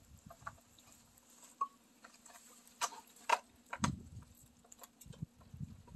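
Scattered light clicks and knocks, with a few dull thumps from about four seconds in, as the power cord of an electric hydraulic log splitter is handled and plugged in.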